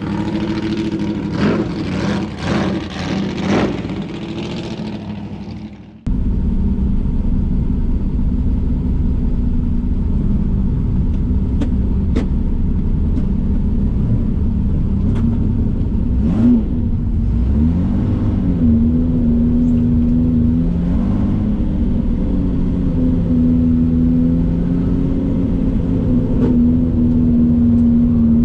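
Datsun 240K racing car's straight-six engine running under load, heard from inside the car, its pitch rising and falling as it revs up and down through gear changes. The sound changes abruptly about six seconds in, from a choppier, pulsing engine sound to a steady, louder engine note.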